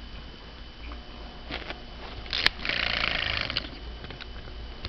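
A plush airplane trembler toy set off by a dog's mouth: a sharp click about halfway through, then about a second of buzzing as its vibrating mechanism runs. Faint clicks come before it.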